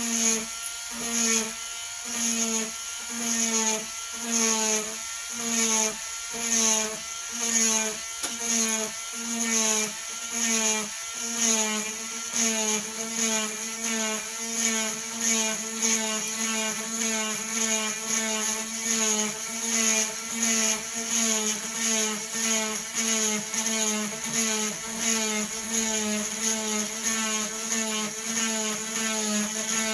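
Rotary tool with a diamond flame-point bit drilling dry into agate. The motor whines steadily, and a grinding surge comes about once a second as the bit is jabbed in and out of the hole.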